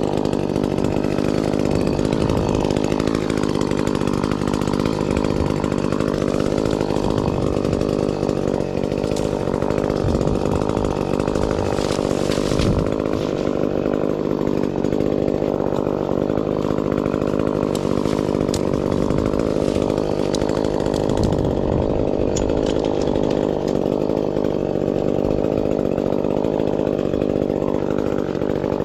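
Gasoline chainsaw engine running steadily and loudly, its pitch holding even throughout.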